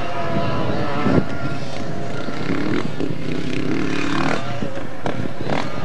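Alfa Romeo Alfasud's flat-four engine revving up and down as the car is driven hard over rough dirt, with several sharp knocks from the car over the bumps.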